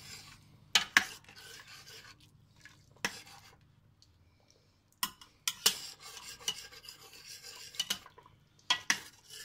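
Metal spoon stirring thick fish soup in a stainless steel pot, a soft scraping broken by several sharp clinks of the spoon against the pot. The stirring pauses briefly about four seconds in.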